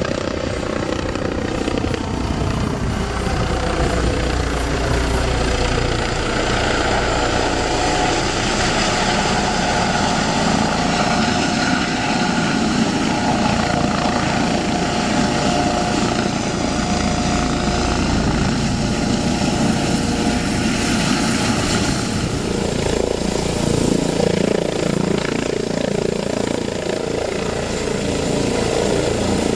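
Eurocopter EC155B helicopter running loud and steady, its rotor and turbine noise carrying a whine whose pitch slides during the first seconds as it flies low past, then holds. It settles into a low hover near the end.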